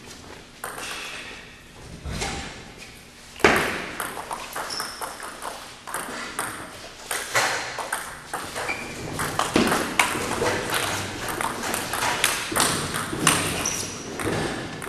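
Table tennis ball in a rally: a quick, uneven run of sharp clicks as it is struck by the rackets and bounces on the table, starting with a hard hit a few seconds in.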